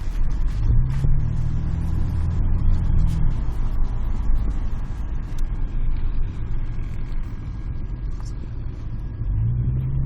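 A motor vehicle's engine running with a low rumble. It picks up pitch about a second in, eases off after about three seconds, and picks up again near the end.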